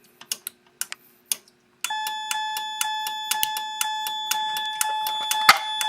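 A few sharp clicks, then about two seconds in a Wheelock CH70 fire alarm chime starts ringing steadily, a bell-like chime tone with a fast repeating strike.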